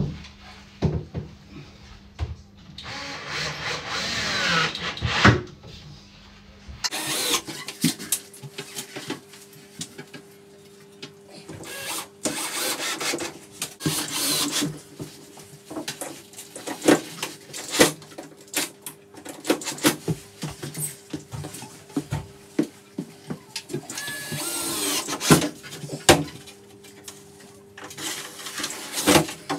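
Cordless drill driving screws into ceiling battens overhead, running in a few short bursts with a rising whine, the longest a few seconds in, and knocks and clatter of the work in between.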